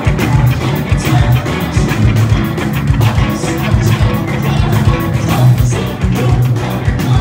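Live rock band playing loudly: electric guitar over a drum kit, with regular drum hits through the music.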